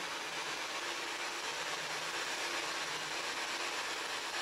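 Steady hissing radio static from a PSB-7 spirit box sweeping through radio stations, with faint brief snatches of tone in the noise.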